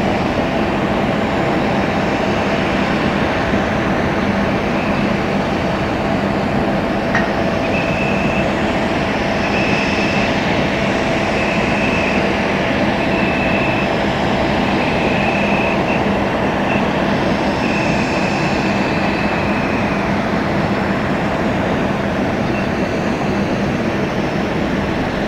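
Steady jet-turbine running noise from an airliner at the airport, a constant hum and whine that stays even in loudness. From about 8 to 20 seconds in, a high beeping tone sounds on and off about every second and a half.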